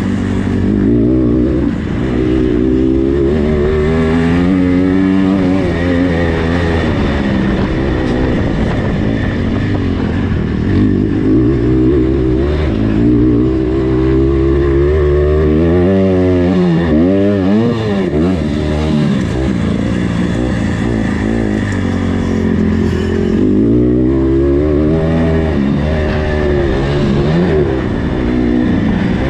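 Engine of an 85cc-class motocross bike racing around a dirt track, revving up and down through the gears, with a short easing-off of the throttle about halfway through.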